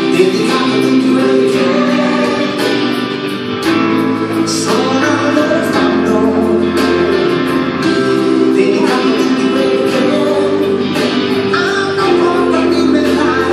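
Music: a song with singing over instrumental backing that includes guitar.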